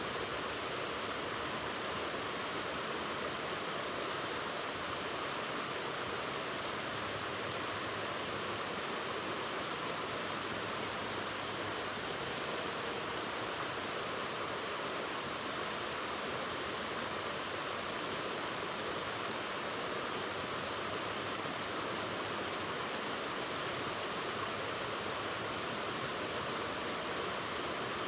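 Waterfall rushing: a steady, even roar of falling water, unchanging in level.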